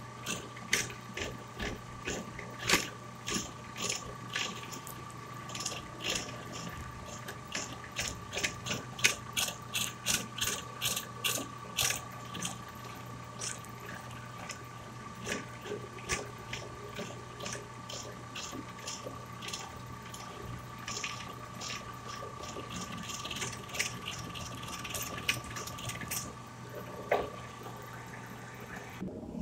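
A handheld electric power tool runs with a steady whine while its bit cuts a channel into a wooden airgun stock, giving a fast, irregular crackle of clicks as chips are torn out. The clicks are densest in the first half, and the motor stops right at the end.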